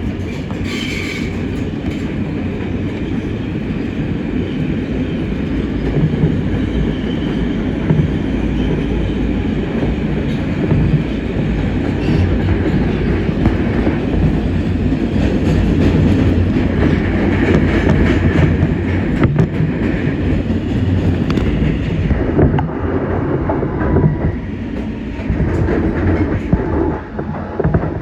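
New York City subway R160 train cars running at speed: a steady heavy rumble of wheels on track, with a faint whine wandering in pitch above it.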